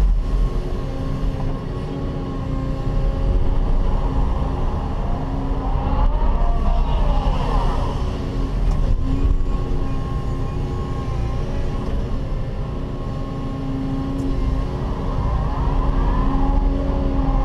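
Cat 316E hydraulic excavator's diesel engine and hydraulics working steadily under load, heard from inside the cab while digging and loading. A whine rises and falls twice as the boom and bucket move.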